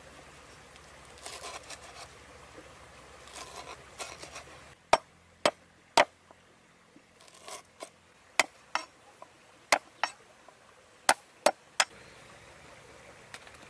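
A series of sharp, irregular knocks, several coming in pairs about half a second apart, with soft scraping between them.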